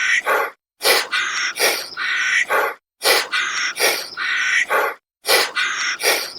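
An animal call in an identical loop that repeats about every two seconds, each round a cluster of harsh, rasping calls followed by a brief silence.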